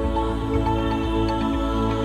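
Background music: calm new-age style with sustained chords.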